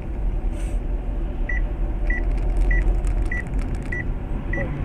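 Steady road and engine rumble inside a moving car's cabin. From about a second and a half in, a short high electronic beep repeats about every 0.6 seconds.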